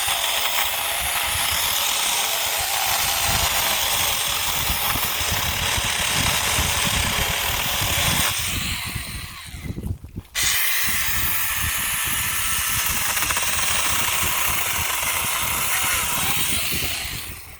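Saker 6-inch mini cordless electric chainsaw running steadily as it cuts through a limb about three inches thick. It winds down briefly a little past halfway, starts again and runs until just before the end.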